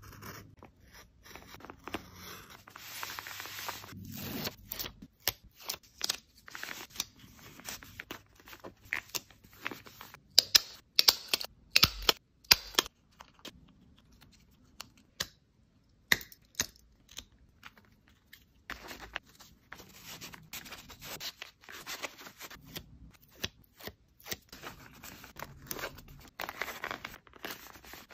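Paper crafting at close range: a pencil scratching along a ruler on kraft paper, paper and cutouts being handled and torn, with many short sharp clicks and rips, loudest in a run about ten to thirteen seconds in.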